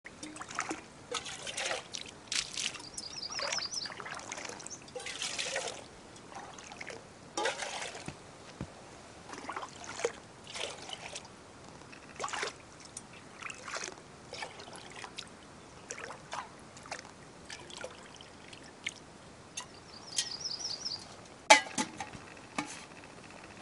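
Lake water splashing and gurgling in irregular bursts as a small cooking pot is dipped and filled at the shoreline. A bird gives a short high trill twice, and there is a sharp knock near the end.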